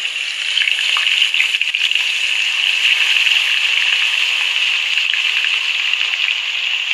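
Hot oil sizzling loudly and steadily around freshly added chilli-masala-coated fish pieces deep frying in a small pan.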